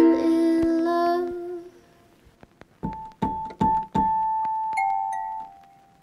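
Background instrumental music: a chord rings out and fades away. After a short pause, a slow melody of single notes begins, with some notes held.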